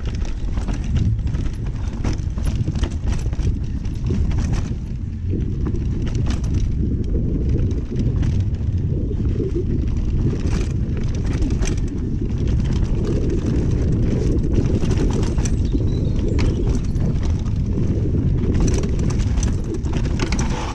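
Mountain bike ridden down a rough singletrack trail: a steady low rumble of tyres and wind buffeting the camera microphone, with frequent irregular clicks and clatters from the bike jolting over rough ground.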